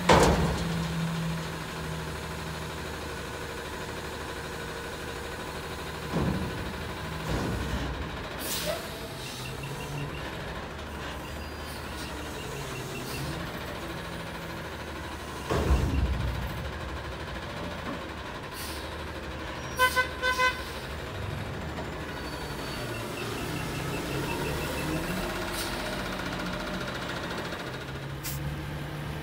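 Natural-gas Autocar ACX front-loader garbage truck with a Heil Freedom body running steadily while its arms and forks dump and lower a metal dumpster. There are several loud bangs, the heaviest right at the start and about halfway through, and a couple of short beeps about two-thirds of the way in.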